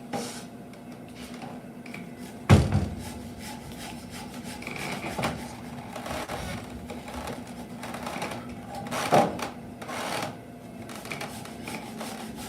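Hand tools working a timber beam: many short, rapid scraping and tapping strokes on the wood, with a heavy wooden knock about two and a half seconds in and another sharp knock near the nine-second mark.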